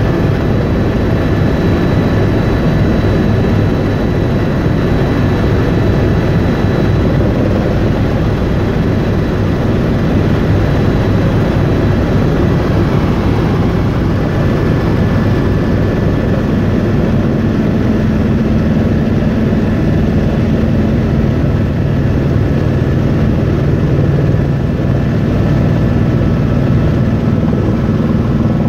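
Helicopter in flight, heard from inside the cabin: a loud, steady drone of rotor and engine with a faint high whine over it.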